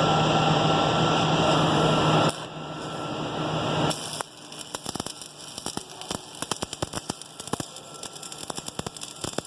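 Steady hiss and hum for the first two seconds or so. From about four seconds in comes the rapid, irregular crackle of a stick welding arc burning a 7014 electrode, set at about 135 amps.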